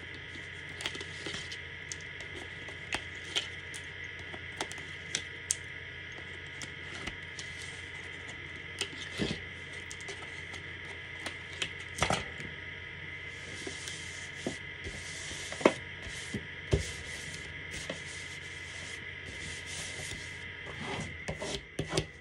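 Hands handling and pressing down stiff cardstock and peeling the backing off strips of adhesive tape, heard as scattered clicks and taps. In the second half come repeated short rustling scrapes. A steady faint hum sits under it all.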